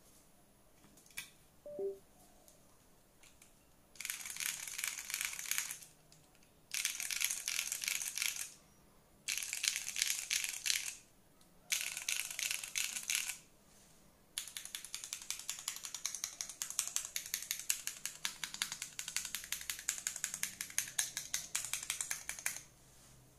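Typing on an Elite60 mechanical keyboard with Ashes switches in an O-ring-mounted aluminum plate, PBT keycaps: after a few quiet seconds come four short bursts of fast typing about two seconds each, then a longer unbroken run of fast typing that stops shortly before the end.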